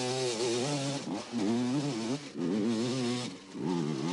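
Dirt bike engine revving hard as it climbs a steep slope, in four bursts. Its pitch rises and falls with the throttle, and it dips briefly between bursts.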